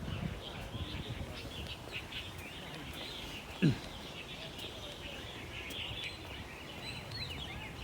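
Small birds chirping and twittering continuously, with one brief, loud, low sliding sound about three and a half seconds in.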